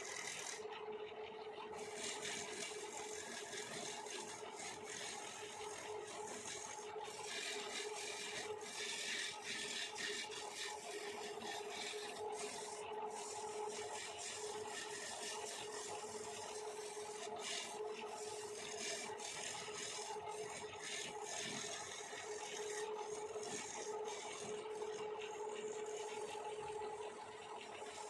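Lathe running with a steady hum while a cutting tool scrapes against a spinning wooden bangle blank, a continuous rasping hiss that swells and eases.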